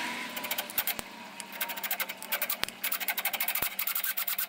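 Cordless drill driving a 6 mm by 1 mm thread tap into a hole in a steel tube, cutting the thread with rapid, irregular clicking and ticking.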